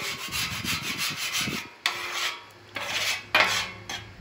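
A hand griddle scraper rasping across the steel cooktop of a Blackstone griddle, pushing bacon grease along. There is one long stroke, then two shorter ones near the end.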